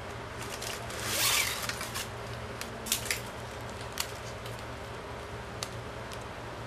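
Plastic packing strap being pulled and threaded through a woven strap knot: a rasping slide about a second in, then a few light plastic clicks and ticks, over a steady low hum in the background.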